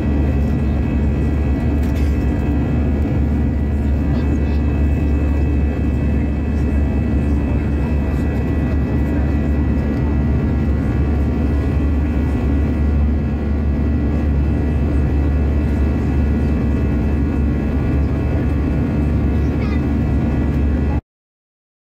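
Jet airliner cabin noise beside the wing-mounted turbofan engine in flight: a loud, steady low rumble with constant tones over it. It cuts off suddenly near the end.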